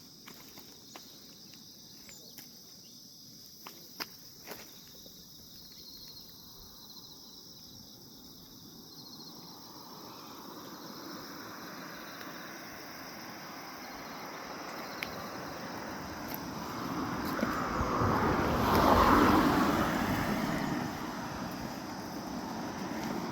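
Grass insects such as crickets trilling steadily and high-pitched. A vehicle passes, its rushing noise building to a peak about two-thirds of the way through and then easing off. There are a few light clicks early on.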